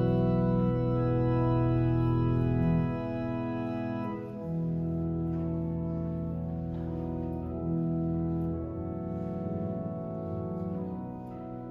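Church organ playing a Christmas carol in long held chords, louder for the first three seconds and quieter from about four seconds in.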